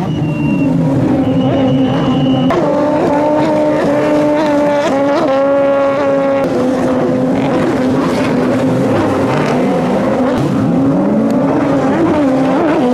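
Racing stand-up jet skis at high revs, engine pitch holding, then rising and falling as they accelerate; near the end the pitch swings in arcs as machines pass close by.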